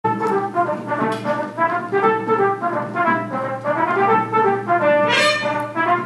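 A full brass band playing together, with quick runs of many short notes and a bright swell about five seconds in.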